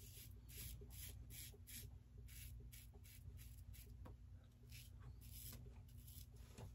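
Faint scratching of an Aylsworth Drakkant stainless-steel open-comb safety razor cutting through lathered stubble on the neck, in short rapid strokes about two to three a second.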